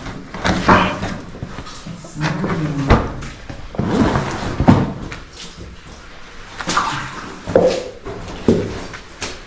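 A person squeezing through a tight, muddy cave crawl: strained grunts and breathing mixed with scrapes and knocks against rock at irregular moments.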